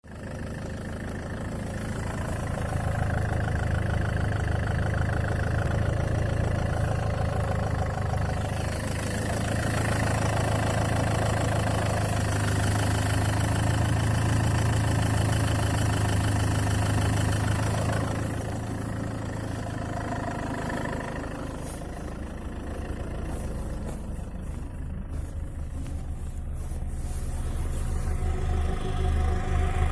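Land Rover Freelander 2 engine running with a knock, its sound swelling and easing as the engine speed changes.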